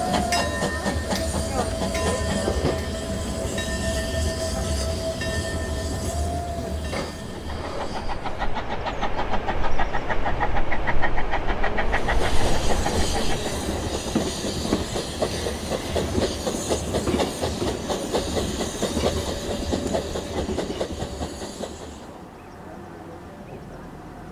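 Furka steam railway train running, heard from an open carriage window: steady rumble and rattle of the carriages on the track. A long steady tone sounds over it for about the first seven seconds. Rapid, even beats follow from about eight to twelve seconds in, and the sound drops away near the end.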